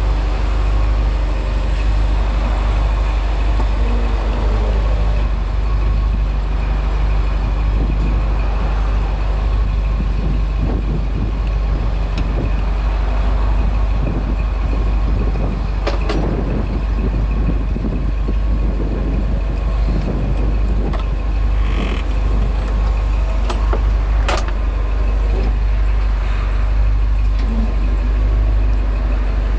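1960 Ford Thunderbird's power convertible top mechanism working as the top rises out of the trunk, with two sharp clunks from the linkage about 16 and 24 seconds in. Under it the car's V8 idles steadily.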